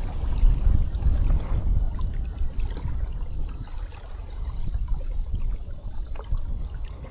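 Water trickling and lapping along a sailing kayak's hull as it moves, under a steady, uneven rumble of wind on the microphone.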